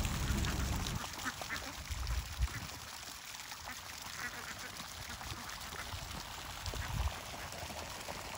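A flock of domestic ducks quacking, many short overlapping calls scattered throughout, with a few brief low thumps.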